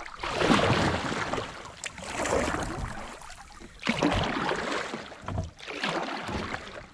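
A kayak being scooted and paddled over a log obstacle: about three surges of water splashing and hull noise, each a second or two long.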